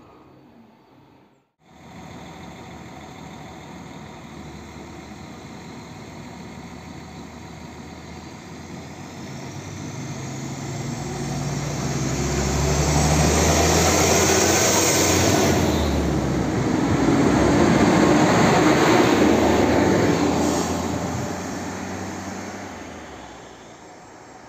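SA139 diesel multiple unit pulling out of the station. Its diesel engine works harder as the train gathers speed, with a high whine that rises and then falls. The sound grows loudest as the train goes by and fades as it moves away.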